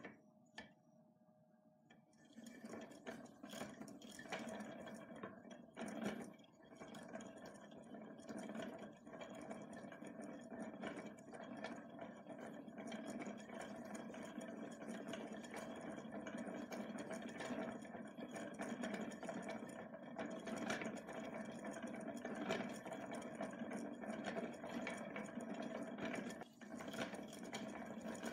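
Hand-cranked zakuri yarn-reeling tool running: its cast-iron gear wheel drives a wooden frame reel that winds yarn, whirring steadily with a fine rattle of clicks. It starts about two seconds in.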